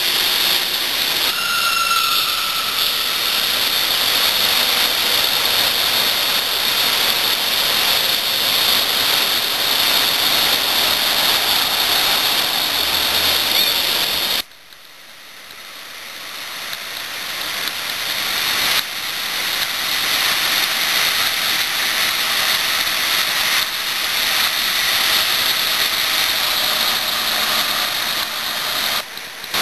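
Steady rushing noise of riding a tandem bicycle through a road tunnel, echoing off the walls. A short high tone sounds about two seconds in. About halfway through the noise drops away suddenly, swells back over a few seconds, then jumps back to full strength.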